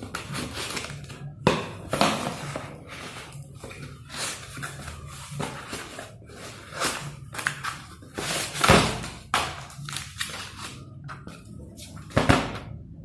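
Cardboard parcel being opened by hand: packing tape cut and pulled, the box rustling and scraping on the bench, and a paper invoice crinkling, in irregular bursts with a couple of louder handling noises, one about two-thirds of the way in and one near the end.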